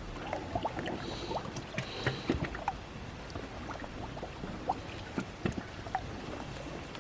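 Small sea waves lapping and splashing among shoreline rocks, with many small clicks, drips and trickles, and two short hisses about one and two seconds in.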